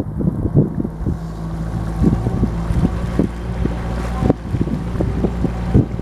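Cruise boat's engine running steadily under way, with wind buffeting the microphone in irregular gusts.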